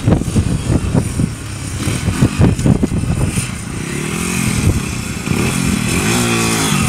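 Small single-cylinder pit bike engine running as it is ridden up close, uneven and rough in the first half, then revving up and down with the pitch rising and falling in the second half.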